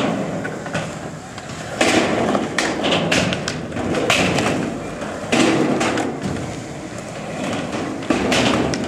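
Skateboard wheels rolling on concrete, broken by several sharp clacks and thuds as boards pop and land, each a couple of seconds apart.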